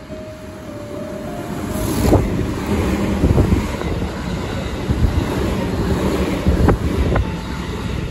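A JR Central electric train, stainless with orange-and-green stripes, running through the station at speed on wet track. Its sound builds over the first two seconds into a loud rumble and rush of wheels on rails, with two sharp clacks near the end.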